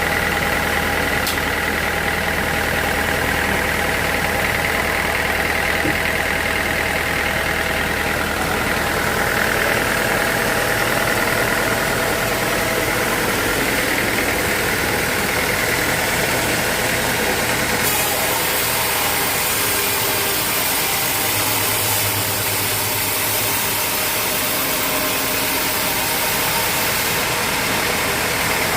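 Sawmill machinery running steadily: a continuous motor hum with a high whine. About two-thirds of the way through the low hum fades and a brighter hiss takes over.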